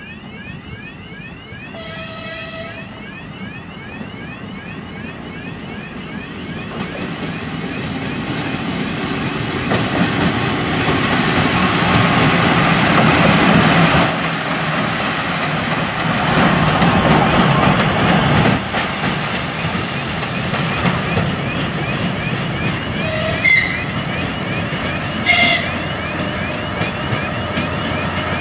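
A 2TE10UK two-section diesel locomotive approaches and passes close by, its two-stroke diesel engines and running gear growing louder to a peak around the middle. A short horn sounds about two seconds in. Two brief horn toots come a couple of seconds apart near the end, as a DR1A diesel multiple unit approaches.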